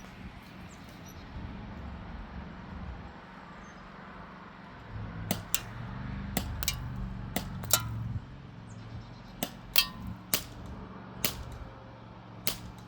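Crosman Z77 CO2 BB gun being fired in a quick string of about eleven sharp shots, starting about five seconds in, several of them in close pairs.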